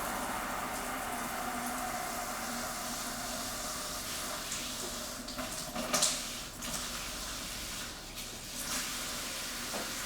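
Water spraying steadily from a shower panel's handheld shower head, with a couple of brief louder splashes about six and nine seconds in.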